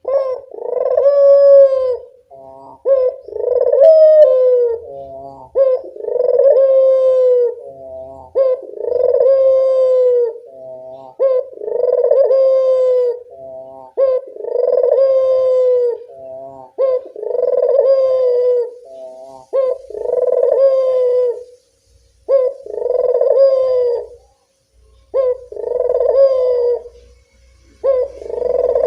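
A puter (Barbary dove) cooing over and over. Each call is a short rolling note followed by a long coo that dips slightly in pitch, repeated about once every three seconds.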